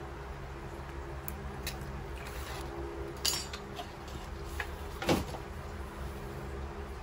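Scattered clicks and knocks of hard plastic items being picked up and handled, such as a clear plastic cup, with two louder clatters about three and five seconds in, over a steady low hum.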